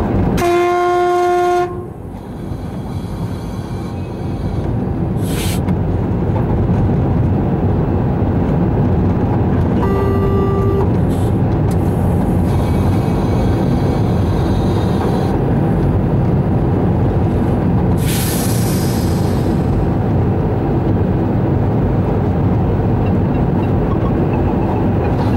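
Cab of a 060-EA electric locomotive under way: a steady rumble of wheels and running gear, with a horn blast of about a second and a half at the start and a shorter, slightly higher horn note about ten seconds in. A brief hiss comes near the end.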